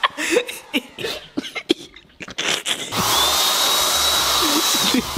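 A few knocks and clicks, then about three seconds in an electric power tool's motor starts with a rising whine, runs loud and steady, and winds down near the end.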